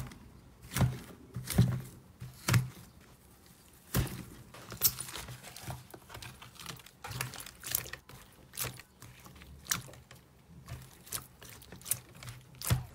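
Frozen slime being pressed and broken by hand, its hardened crust giving irregular sharp crackles and pops, about one or two a second, some much louder than others.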